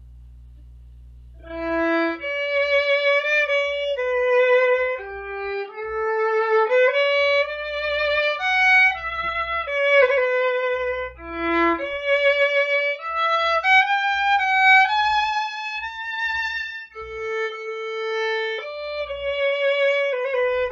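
A single instrument plays a slow melody one note at a time, with a wavering vibrato on the held notes, starting about a second and a half in. It comes over a video call with original sound switched on, and no notes drop out.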